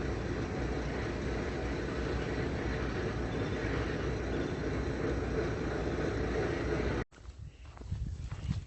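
Steady road and engine noise of a moving car, heard from inside. It cuts off abruptly about seven seconds in, leaving quieter outdoor sound with a few light thumps.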